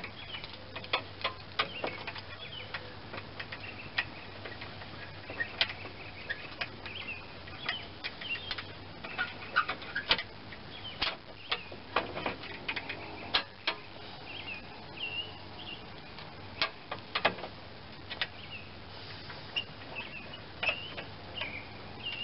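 Scattered light clicks and taps of a steel bracket being handled on a mower deck, with birds chirping in the background.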